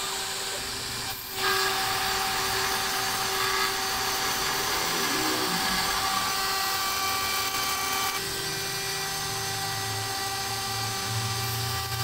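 DIY CNC router spindle running with a steady whine while its end mill cuts a circular groove into a 3 mm white acrylic sheet. The sound dips briefly about a second in, then the cutting comes back louder, and a low hum joins in over the last few seconds.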